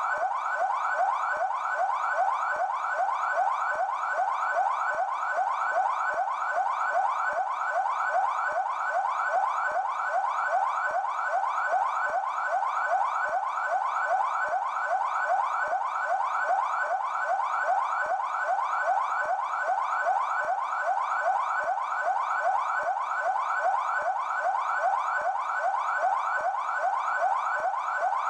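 São Paulo Military Police (PMESP) car siren in yelp mode: a fast, evenly repeating up-and-down wail, several cycles a second, holding steady without a break.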